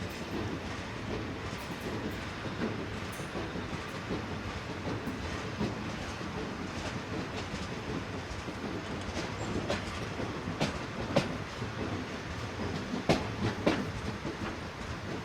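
A train rolling on rails, hauled by a South African Railways Class 24 steam locomotive: a steady rumble with irregular clicks and clanks of wheels over rail joints, a few sharper ones in the second half.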